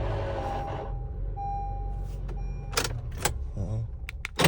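Honda car engine just fired up on a newly programmed key and running at idle, settling from a brief louder rush at the start into a steady hum: the immobilizer has accepted the new key's transponder. A steady electronic tone sounds for about the first second and a half, and a few sharp clicks come near the end.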